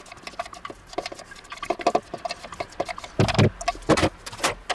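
Spatula scraping and tapping chopped onion and parsley out of a plastic chopper container into a frying pan: a run of light clicks and taps, with two heavier knocks a little past three seconds and just before four.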